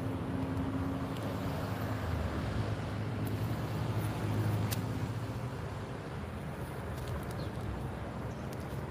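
Low steady rumble of motor traffic, with a few faint sharp clicks.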